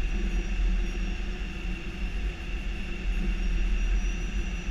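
Steady flight-deck noise of an Airbus A319 on short final approach: a low rumble and a rush of airflow with engine hum, and faint steady high whines over it.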